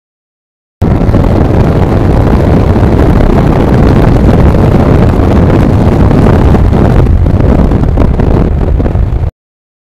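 Wind buffeting the microphone of a motorcycle-mounted camera at road speed, over a 1989 Kawasaki Ninja GPX750R's inline-four engine running under load. The sound cuts in sharply about a second in and cuts off abruptly near the end.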